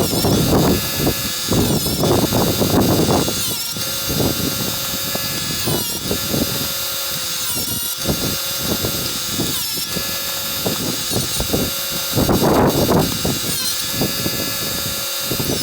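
Chicago Electric electric chainsaw chain sharpener running, its grinding wheel brought down onto the chain's teeth in a series of short grinds. The loudest grinding comes in the first three seconds and again for about a second near the end.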